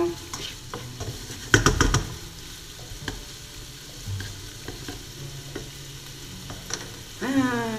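Diced bacon sizzling as it fries in a pan, with a spatula stirring it and a short clatter of the spatula against the pan about a second and a half in.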